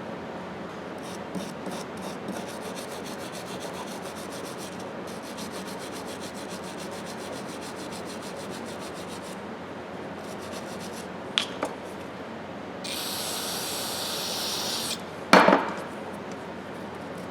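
Quick rhythmic rubbing strokes of hand-scrubbing a steel ratchet part clean, followed by two small clicks, a hiss lasting about two seconds, and a sharp clunk near the end.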